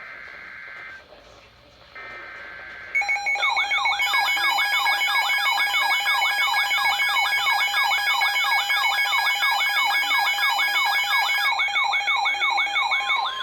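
Emergency Alert System tones on a radio broadcast. First come two short bursts of the buzzing digital SAME header, then from about three seconds in the loud EAS attention signal, a warbling alarm tone that keeps going. Together they mark the start of a new emergency alert, here a flash flood warning.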